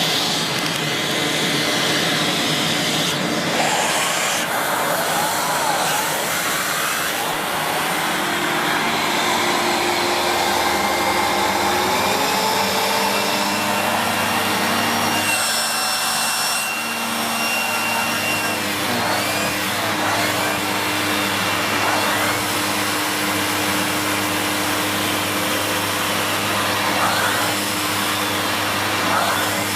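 Sanyo SCA-7AX upright bagged vacuum cleaner, with its 1000-watt motor, running continuously while sucking through its mini turbo brush. Its steady note shifts in pitch a few times, rising a little about twelve seconds in.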